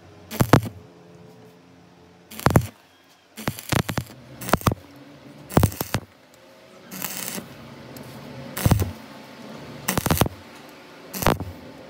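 Arc welding in about ten short, irregular crackling bursts, building up weld metal on a worn, undersized brake caliper pin.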